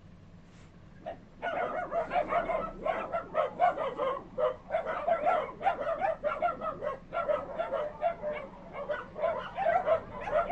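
Many shelter dogs barking over one another, starting about a second and a half in and going on without a break. It is alert barking at a delivery vehicle arriving at the gate, the barking spreading from dog to dog.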